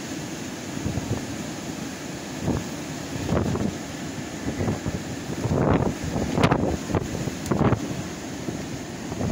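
Strong storm wind blowing, with a steady rush and sharper gusts that buffet the phone's microphone several times.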